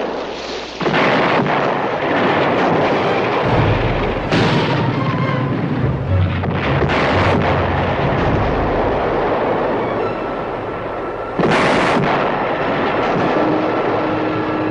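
Artillery barrage on a war-drama soundtrack: a continuous rumble of shellfire with several heavy explosions. Background music joins about three and a half seconds in.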